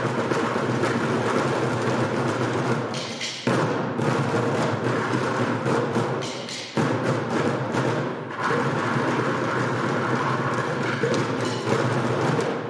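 A percussion ensemble drumming on plastic buckets: many quick strikes layered into a steady rhythm, with sudden loud hits about three and a half and about seven seconds in.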